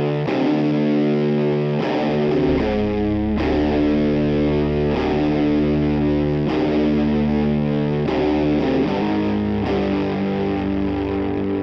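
Stoner-rock instrumental opening: a fuzz-distorted electric guitar lets long chords ring, striking a new one about every second and a half. A low bass line joins about two and a half seconds in.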